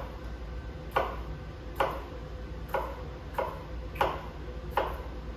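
Chef's knife chopping a red bell pepper into small strips on a plastic cutting board: six sharp knocks, a little under a second apart.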